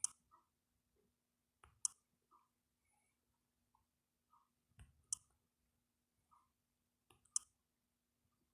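Four sharp, short clicks a few seconds apart over near silence, with faint small ticks between them.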